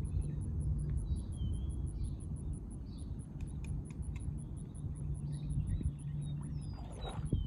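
Outdoor ambience of a low wind rumble on the microphone, with small birds chirping now and then and a faint, high, evenly pulsed chirp. Near the end a horse's hooves start splashing in shallow floodwater.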